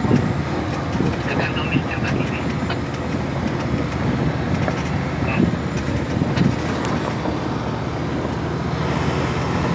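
A vehicle driving on a rough gravel road: a steady engine hum under the rumble of tyres on loose stones, with a few short knocks and rattles.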